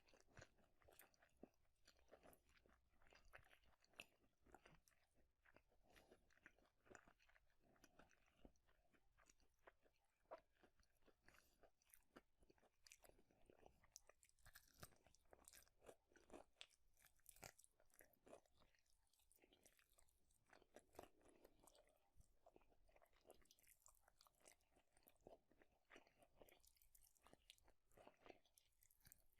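Close-miked chewing and biting of fast food (cheeseburger and fried chicken wings), quiet, a dense run of small crunches and wet mouth clicks.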